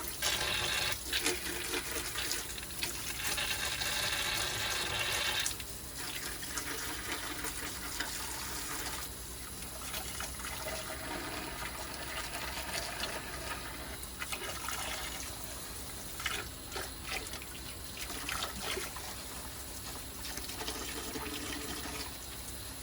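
Water running from a tap, strongly for about the first five seconds, then softer splashing and trickling with small clicks as cleaned clock parts are rinsed.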